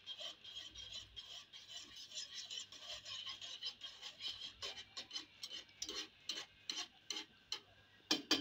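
Wire whisk stirring hot sugar water with cornflour in a non-stick pot: a continuous scraping swish, turning into regular sharp clicks of the wires against the pan, about three a second, from about halfway. A few louder knocks come near the end.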